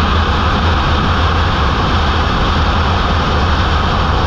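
Kawasaki Ninja ZX-10R inline-four sportbike cruising at a steady highway speed: a constant engine note under heavy, fluttering wind rush.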